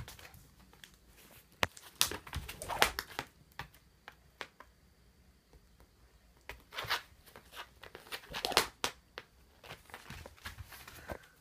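A Shiba Inu's paws scrabbling and claws scratching on tatami mats as it pounces on and paws at a string cat-teaser toy, in several bursts of scratchy clicks and rustles.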